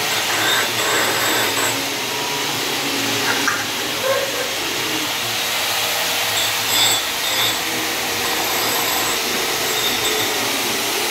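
Handheld electric angle polisher running steadily with a polishing pad on the edge of a black granite slab: a continuous, even whirring hiss.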